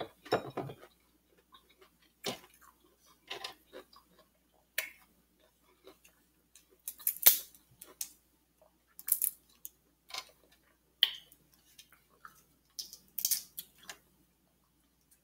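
Shrimp shell being peeled by hand close to the microphone: scattered short crackles and clicks at irregular intervals, one every second or two.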